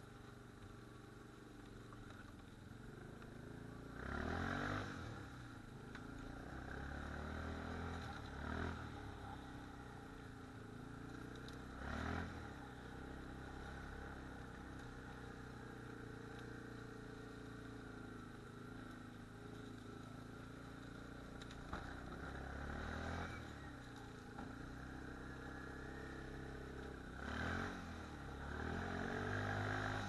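ATV engine running at low speed as the quad is ridden slowly, with about six brief louder bursts.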